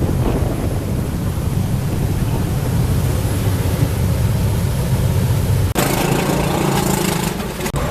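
An engine running steadily with a low drone. About six seconds in it cuts off abruptly to a different, hissier sound.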